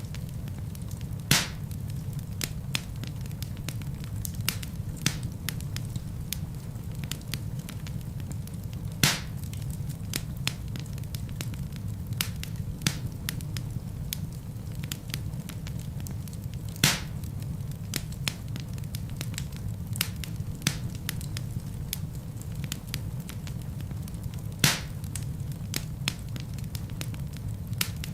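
Wood fire burning in a fireplace: a steady low rumble of flames under frequent small crackles, with four louder pops from the burning logs spread through the stretch.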